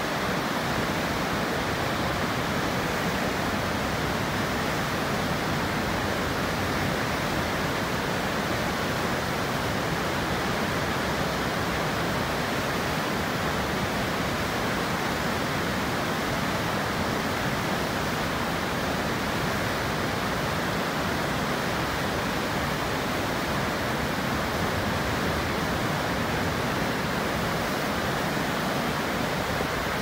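Water pouring down a stepped stone dam spillway and churning in the pool below: a steady, even rush with no breaks.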